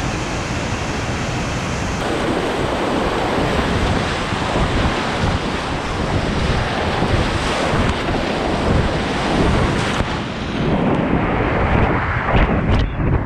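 River rapids rushing loudly, then the churning splash of whitewater around a kayak running a steep drop, close on the paddler's head-mounted camera. Several sharp splashes come near the end as the boat drops into the foam.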